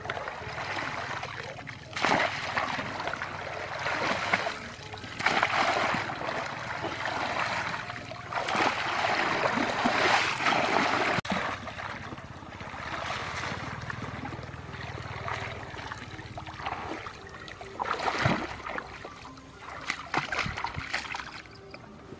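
Shallow muddy water splashing and sloshing in repeated irregular bursts as a wicker basket and hands scoop through it.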